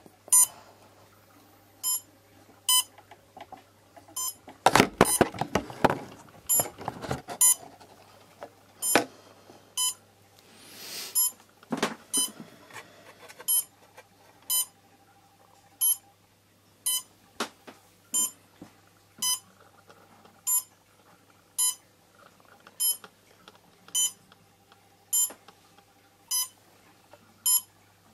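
Short electronic beep repeating about once a second from the quadcopter's electronics, with a burst of rattling handling noise a few seconds in.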